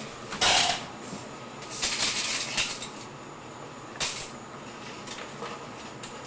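Handling noises: three short clattering rustles as small objects on a shelf are moved about.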